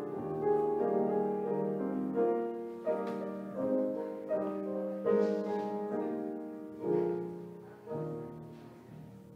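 Piano postlude: slow, sustained chords with a new note or chord struck about every second, fading away toward the end.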